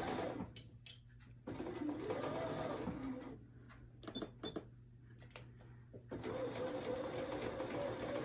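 Bernina sewing machine stitching slowly with a binder attachment, in stop-start runs: a short run at the start, another from about a second and a half to three seconds, then steady stitching from about six seconds in. A few light clicks fall in the pause between runs.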